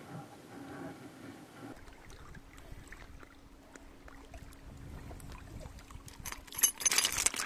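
Small waves lapping and trickling over pebbles at a lakeshore, with a faint steady hum under it. About six seconds in, louder crackling and scraping sets in.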